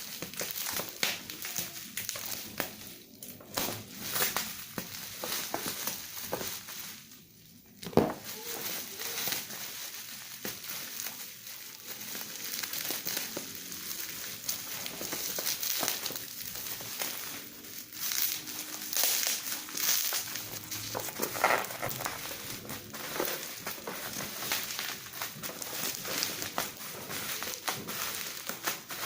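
Packaging crinkling and rustling as a boxed hair clipper is unpacked, with scattered clicks and a sharp knock about eight seconds in.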